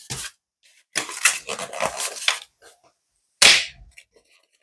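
A gift package being handled: rustling and light knocks, then one sharp smack about three and a half seconds in.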